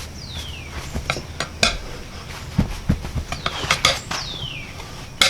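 A steel pry bar clinking and knocking against a lawn tractor's steel wheel rim in irregular strikes while the tire bead is being broken, with two short falling squeaks.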